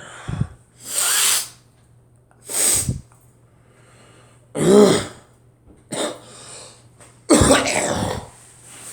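A person coughing repeatedly: about five separate harsh coughs spaced a second or two apart, the longest near the end.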